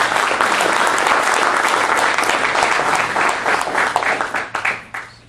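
Audience applauding to welcome a speaker. The clapping is loud and dense, thins to a few scattered claps about four seconds in, and stops shortly after.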